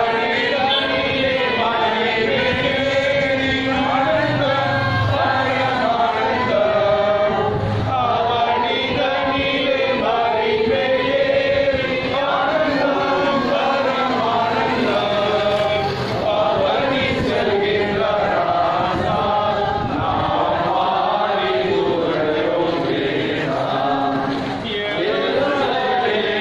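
A crowd of people singing a processional hymn together in unison, many voices at once without a pause.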